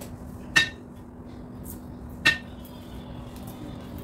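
Kitchen knife knocking sharply on a cutting board twice, about a second and a half apart, while garlic is being crushed and cut, over a faint steady hum.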